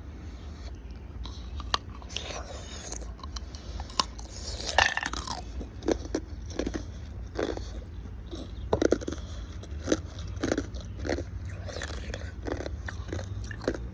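Ice cubes being bitten and chewed close to the microphone: a run of irregular, crisp crunches.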